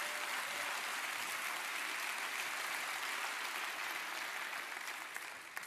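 Large congregation applauding steadily, the clapping dying away near the end.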